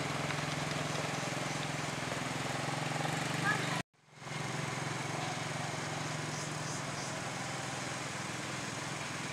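Small ATV engine running steadily at low speed as the quad is ridden. The sound cuts out abruptly for a moment about four seconds in, then comes back.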